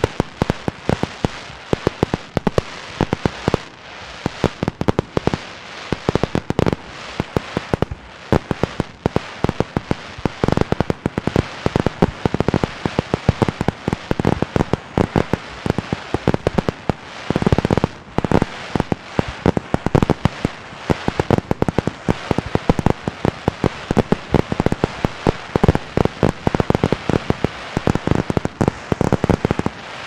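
Fireworks going off in a dense, continuous barrage of sharp pops and cracks, many each second at irregular spacing, with heavier, deeper bursts mixed in, the biggest about seventeen seconds in and again near the end.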